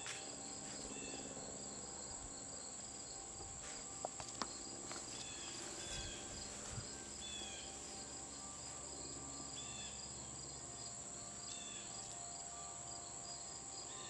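Insects trilling steadily: a continuous high buzz with a faster pulsed call repeating underneath. A few short chirps and some faint clicks come in along the way.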